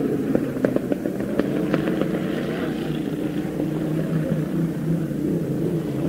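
Racing inboard hydroplane engine running at high revs, a steady drone, as the boat runs the kilometre speed trap.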